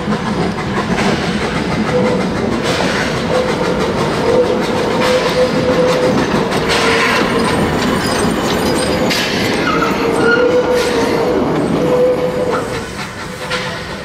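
The 1877-built 2-4-0 side tank steam locomotive L 509 working its train of wooden carriages past at close range: steam hissing and surging every second or two over the rattle of wheels on the track. A thin squeal from the wheels comes and goes.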